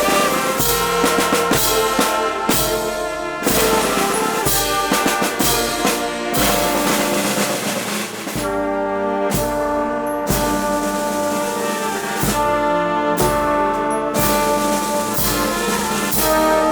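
Filarmónica wind band playing a processional march: held brass chords over regular drum beats.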